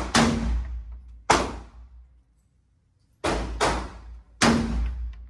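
Gunshots at a shooting range: about six sharp reports in irregular succession, some close together in pairs, each trailing off in a short echo.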